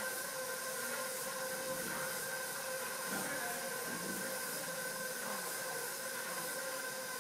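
A steady mechanical hum with an even, high whine over hiss, like a running motor or fan. Faint low voices murmur briefly in the middle.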